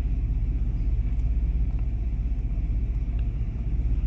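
1998 Chevy C1500's 5.0-litre V8 idling steadily, fully warmed up: a low, even rumble.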